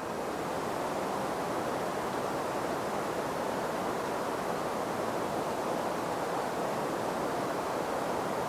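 Steady wind blowing in an even rush, with no gusts or breaks.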